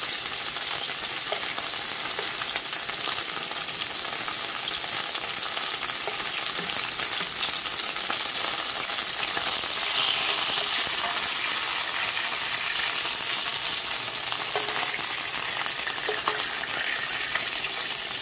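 Chicken pieces sizzling in hot cooking oil in a nonstick frying pan, a steady crackling hiss that swells a little about ten seconds in, with a spoon being moved through the pan as the pieces are lifted out.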